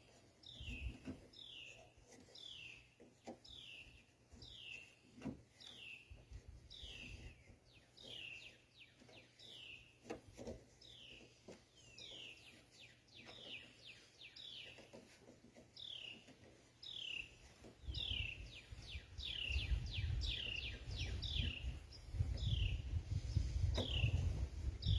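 A songbird repeating a short, high, falling chirp about one and a half times a second, with a few faint knocks. A low rumble comes in about three quarters of the way through.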